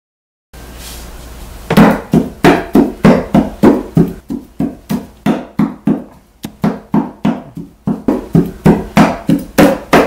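A small doll banged again and again on a wooden tabletop: sharp knocks about three a second, each with a short ring, starting after a faint hiss about two seconds in.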